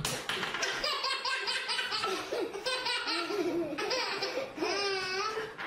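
A baby laughing hard in rapid repeated bursts, with one longer drawn-out laugh near the end.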